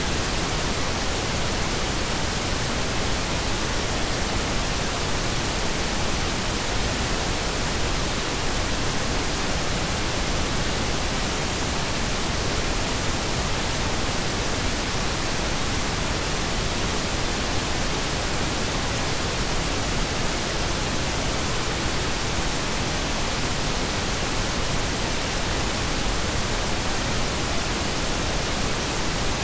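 Steady synthetic pink noise: an even, featureless hiss spread across the whole range, with no change in level.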